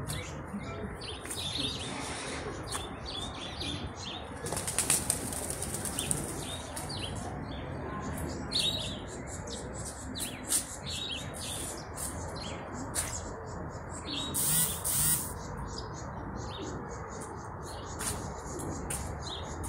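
Small birds chirping on and off against a steady outdoor background, with a few louder bursts of rustling as the camera moves among guava leaves.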